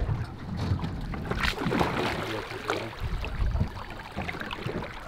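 Water splashing irregularly as a small, undersized sturgeon thrashes at the surface beside the boat on the line.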